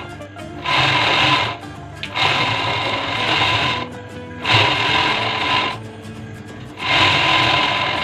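Overlock (serger) sewing machine stitching a seam in four short runs, each about a second or more long, stopping briefly between them as the fabric is guided through.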